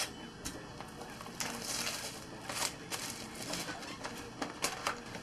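Cardboard trading-card hobby box being handled and opened by hand: scattered short rustling and scraping scratches, with a few light clicks a little after four seconds in.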